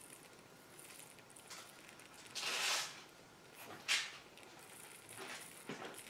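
A small spoon scooping and sprinkling diamond dust glitter from a metal tin: a short gritty rattle about two and a half seconds in, then a sharp clink against the tin about a second later, with a few faint ticks near the end.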